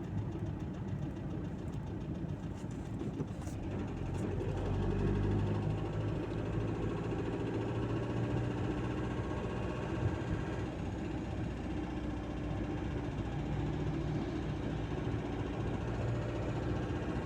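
Volkswagen 1.9 TDI four-cylinder turbodiesel running warm with a knock that stays when the engine is hot; it runs a little louder for a second or two about five seconds in.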